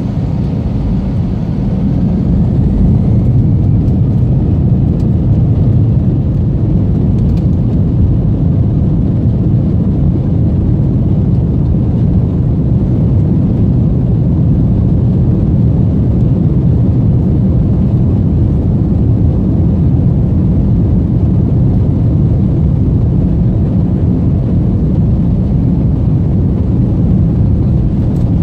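Airbus A320-family airliner's jet engines heard from inside the cabin during the takeoff run: a faint rising whine and a swell in level about two seconds in as thrust comes up, then a loud, steady, low rumble.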